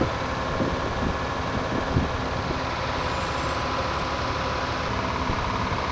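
Long-tail boat's engine running steadily under way, a constant drone.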